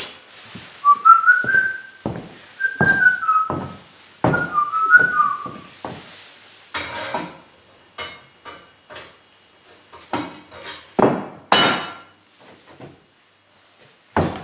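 A person whistling a few short notes in the first half, among repeated knocks and clunks of tools and metal parts being handled.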